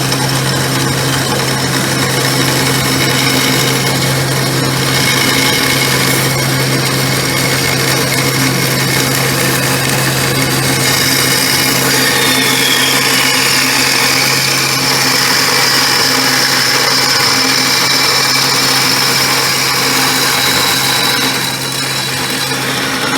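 Rockwell Model 20 vertical bandsaw running, its electric motor humming steadily under loud blade and drive noise. About halfway through, a high whine slides down in pitch over a few seconds.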